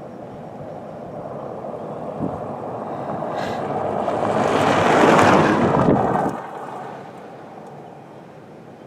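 Gust of wind blowing across the microphone, a rushing noise that swells over about five seconds and drops away sharply about six seconds in.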